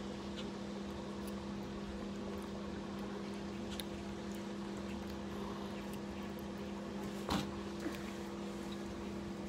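A steady low hum with a few faint clicks from a fork in a plastic bowl, the sharpest click about seven seconds in.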